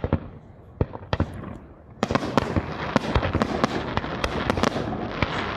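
Aerial fireworks display: a few single bangs from bursting shells, then from about two seconds in a dense crackle of many sharp reports in quick succession.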